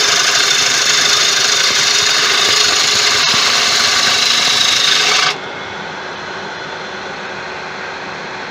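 A turning tool cutting into a large tiger wood blank spinning on a wood lathe: a loud, steady shearing hiss while roughing wood away. About five seconds in the cutting stops abruptly, leaving the steady lower sound of the lathe running.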